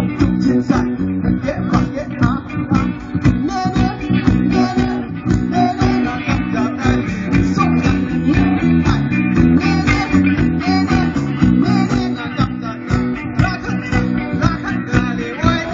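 A live band playing a song through a loud PA, with guitar and bass over a steady drum beat and a singer's voice carrying the melody.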